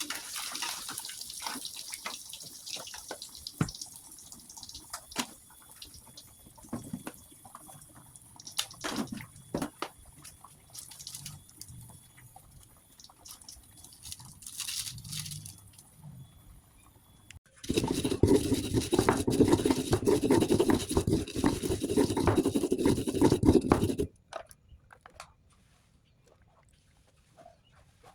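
Kitchen work with water: scattered small clicks, splashes and drips, then about two-thirds of the way through a loud, steady rushing noise for about six seconds that cuts off suddenly.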